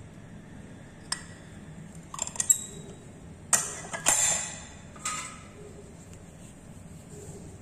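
Glass Petri dish clinking and scraping as it is handled and set down on a tiled bench. A light click comes first, then a quick cluster of clicks, then several louder sharp knocks, each followed by a short rasp, around the middle.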